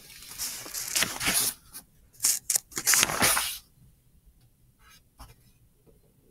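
Paper rustling as textbook pages are turned, in a run of short noisy bursts over the first three and a half seconds, followed by a few faint ticks.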